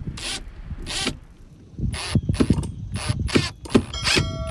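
Cordless impact driver driving a screw through a webbing strap into a boat hatch door, run in a series of short bursts of rapid hammering.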